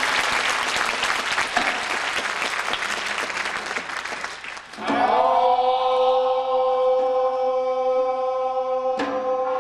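Audience applauding; about halfway through, the applause gives way to a long, steady chanted note held by voices, with a single sharp percussive strike near the end.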